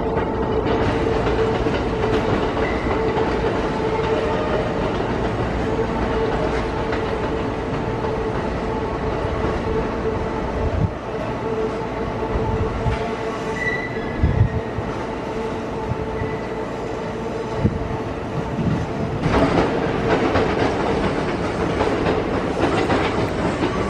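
Electric trains running slowly over the station tracks and points, first a JR West 683-series limited express and then a 221-series local train. Wheels clack over rail joints and points, with a steady hum underneath.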